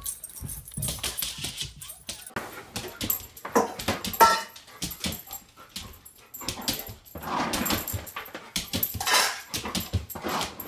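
A dog vocalising in short, irregular bursts of whining and grumbling, with several louder stretches.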